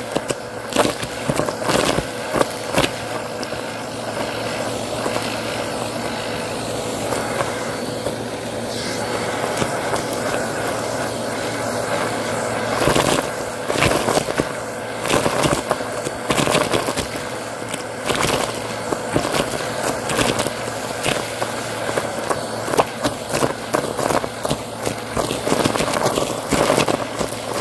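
Bissell CleanView vacuum running with its hose nozzle sucking small debris (confetti, sequins, beads, buttons, pistachio shells) off a carpet: a steady motor hum under a light crunch and rattle of bits clattering up the hose. The clattering is thick in the first few seconds, thins out, then comes back dense about halfway through.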